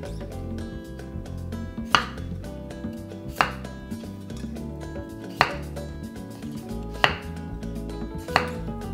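Chef's knife cutting through peeled russet potatoes and striking a wooden cutting board: five sharp knocks about a second and a half apart, over background music.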